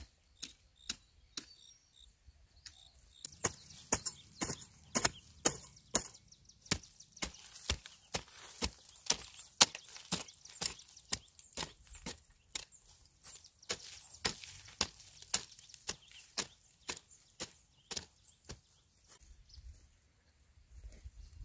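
Repeated chopping, a hand tool striking wood about two to three times a second, thinning out near the end.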